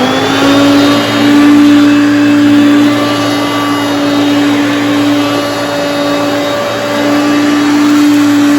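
Hoover Concept One vacuum cleaner switched on: its motor winds up to speed in a rising whine right at the start, then runs steadily at full speed with a loud, even hum and airflow rush.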